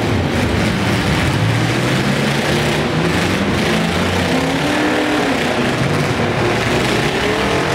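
Several demolition-derby mini trucks and vans running and revving together, a loud, steady engine din with one rev rising and falling about five seconds in.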